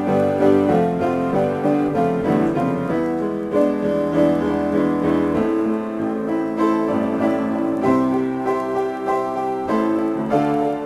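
Piano improvisation: chords with a melody over them, many notes sustained and overlapping, with the low bass notes dropping away about halfway through.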